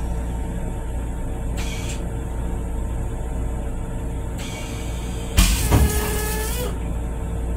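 The stainless-steel toilet of an M7 railcar flushing: about five and a half seconds in, a loud rush of water and air lasting just over a second, with falling squealing tones in it. Under it the railcar's steady low rumble and hum, with two short hisses before the flush.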